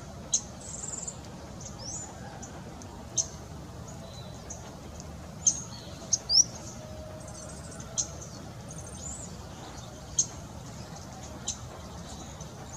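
Wild birds calling: sharp high chips every second or two, mixed with a few short rising whistles, over a steady low background hiss.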